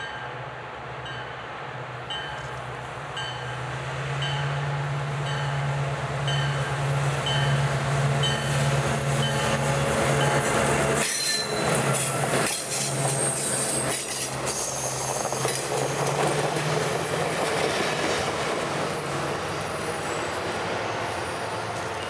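Passenger train led by two EMD FP9A diesel locomotives approaching and passing close by. A steady low engine drone grows louder over the first several seconds, followed by the rumble and clatter of wheels as the locomotives and cars roll by.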